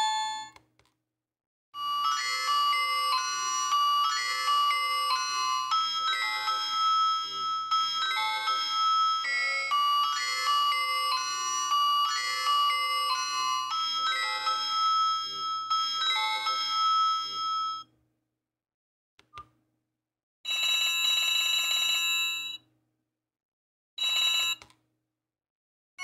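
Nokia 130 (2023) feature phone playing its built-in ringtone previews through its small loudspeaker. The tail of one tone is cut off just after the start. A second electronic melody then plays for about sixteen seconds, and after a click two more tones start and are cut short, one after about two seconds and one after about half a second.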